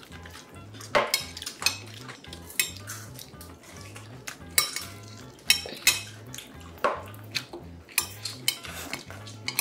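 Close-up eating sounds: bites into fried chicken with sharp, irregular crackles and crunches, mixed with light clinks of chopsticks and dishes.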